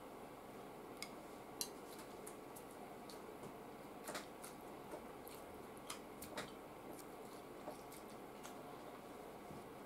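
Faint, scattered wet clicks and smacks of a man chewing food in his mouth, over a low steady room hiss.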